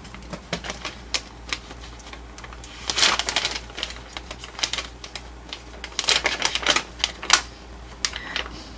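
Packaged jerky bag being handled and opened: quick crinkling and crackling, with louder bursts about three, six and seven seconds in.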